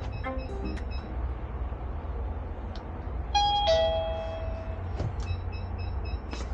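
Electronic door-entry panel beeping about four times a second, with a two-note falling chime about three seconds in. The door stays locked despite the button presses, which the owner puts down to some fault. A steady low rumble runs underneath.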